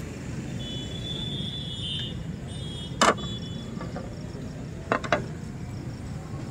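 Three sharp metal clinks, one about three seconds in and a quick pair near five seconds, as kebab skewers are knocked against the grill and its pan, over a steady low rumble of stall and street background noise.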